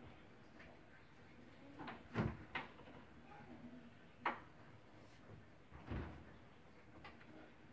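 Household knocks and thumps as someone moves about a room: a cluster of knocks about two seconds in, a sharp knock just after four seconds and a duller thump near six seconds.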